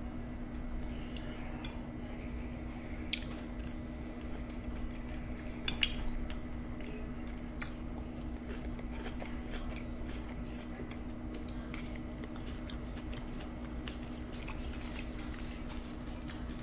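A metal fork clicking against a plate and teeth a few times, loudest about six seconds in, with soft chewing of pizza close to the microphone. A steady low hum runs underneath.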